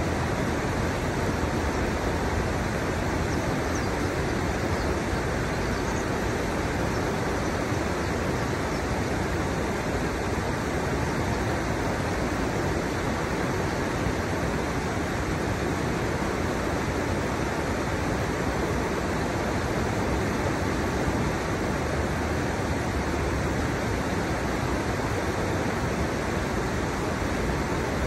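Shallow river water rushing steadily over the stepped drops of a concrete-stepped riverbed, a continuous even rush like a small weir.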